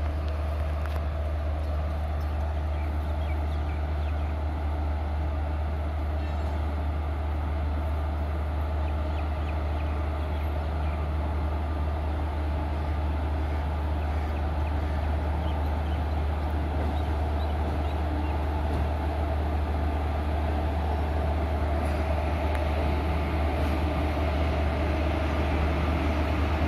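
A train at a railway station, a steady low rumble with a spread of noise above it, growing slightly louder over the last few seconds.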